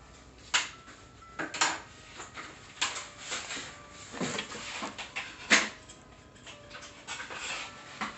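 Metal barbecue grill parts knocking and clicking as they are handled and fitted during assembly: several separate sharp knocks, the loudest about five and a half seconds in, with rustling between them.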